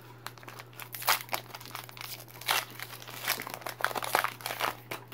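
Foil wrapper of a Pokémon booster pack crinkling as it is torn open and the cards are pulled out, in quick irregular crackles.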